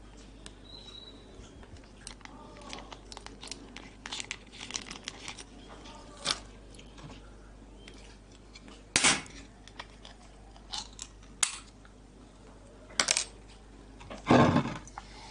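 An aluminium Pepsi can being opened and handled: a sharp crack and short hiss about nine seconds in, a few lighter metallic clicks after it, and a heavier knock near the end as the can and glass are handled. Before this there are light rustling and small clicks.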